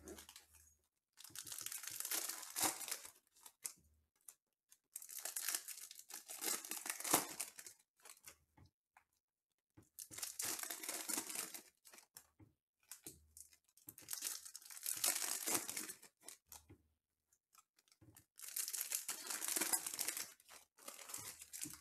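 Foil wrappers of Panini Mosaic football hobby packs being torn open and crinkled by hand, in five bursts of two to three seconds each with short pauses between.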